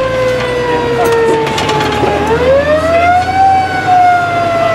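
Fire engine siren heard from inside the cab in a slow wail: the pitch sinks for about two seconds, then rises again and starts to fall, over the low rumble of the truck's engine.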